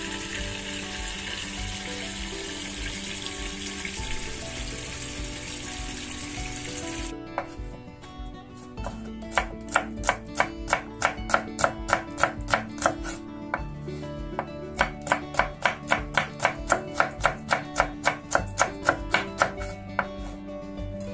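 Tap water running onto vegetables in a stainless-steel bowl for about the first seven seconds, then a kitchen knife chopping green beans on a wooden cutting board: a quick steady run of chops, about three a second, with a short pause partway. Background music plays throughout.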